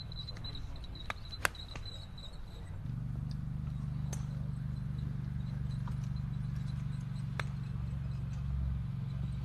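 Driving-range ambience: a few sharp clicks of golf balls being struck, several seconds apart, over a steady low hum that grows louder about three seconds in.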